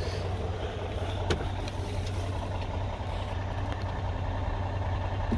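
A truck engine idling steadily, a low even hum, with one light click a little over a second in.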